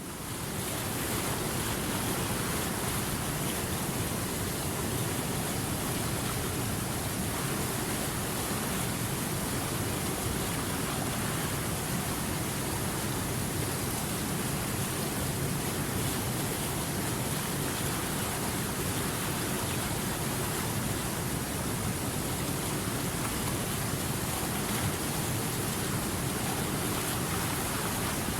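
River water flowing, a steady, even rush of moving water.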